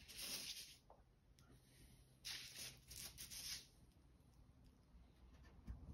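Faint rustling and scratching of Modroc plaster bandage being handled, in two short spells, the second about two seconds in.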